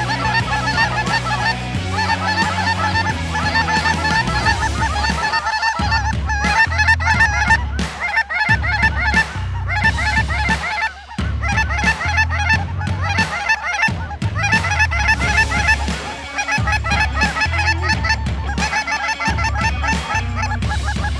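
A large flock of cackling geese calling all at once, many short overlapping calls with no break. Under it runs background music with a deep, stepping bass line.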